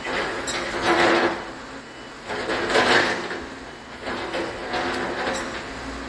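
Hidromek 140 crawler excavator's bucket scraping and clattering through broken paving stones and concrete rubble in two pushes of about a second each, about a second in and near the middle, over the steady running of its engine.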